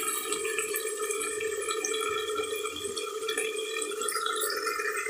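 Chicken and potatoes sizzling and crackling in a covered kadai on the stove, over a steady hum of level tones.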